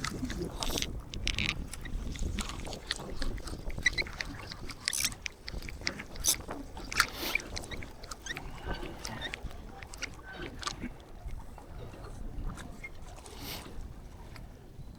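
Irregular splashing, clicks and rustling handling noises as a small fish is reeled in and landed.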